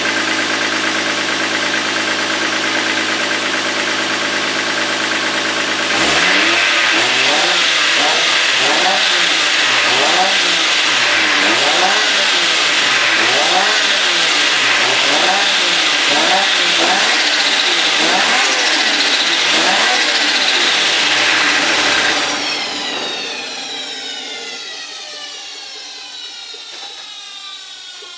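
Toyota JZX with an Apexi RX6 turbo: the engine idles steadily, then from about six seconds in it is revved up and down in quick blips, about once a second, with turbo whine over the top. About 22 seconds in the engine note drops away and a high turbo whine winds slowly down in pitch as it fades.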